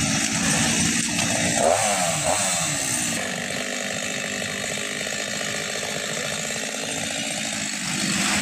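Chainsaw running while fallen trees are cut up and cleared. Its pitch rises and falls around two seconds in, then it runs steadily.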